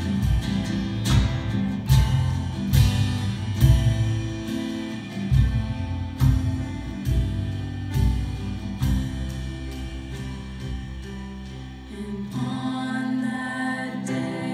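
Live worship band playing: drum kit keeping a steady beat under bass and electric guitar. About twelve seconds in the drums drop back and the singers' voices come in.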